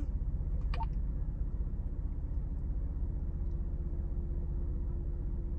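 Camper van's engine running, heard from inside the cab: a steady low rumble with a faint even hum.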